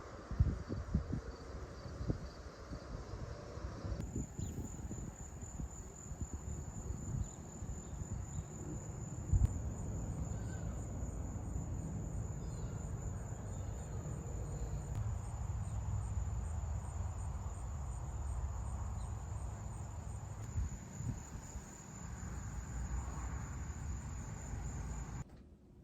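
Insects trilling in one steady, high-pitched, finely pulsing buzz over a low rumble. The trill starts suddenly about four seconds in and stops just before the end.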